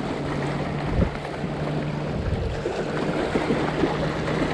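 A steady low engine hum over wind buffeting the microphone, with a single low thump about a second in.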